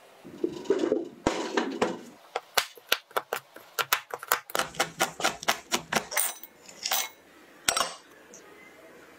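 Knife chopping a chocolate bar on a wooden cutting board: a quick run of sharp chops, about four a second, then a few slower, heavier knocks.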